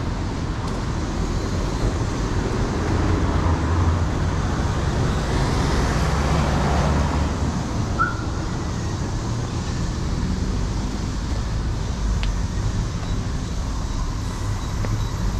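Street traffic on a city avenue: a steady rumble of passing cars, with one vehicle's engine swelling as it passes about a third of the way in. A brief high chirp sounds about halfway through.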